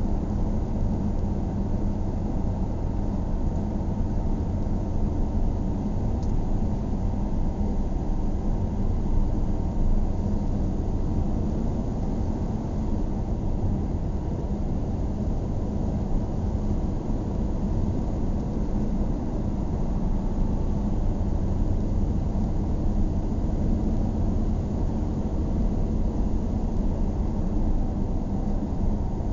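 Steady road noise of a car driving on an asphalt road, tyre and engine sound heard from inside the cabin.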